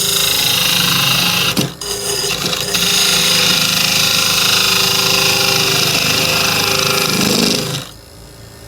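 Turning tool cutting a hackberry blank spinning on a wood lathe: a loud, steady cutting noise that breaks off briefly about a second and a half in. Near the end the cutting stops, leaving a quieter steady running sound.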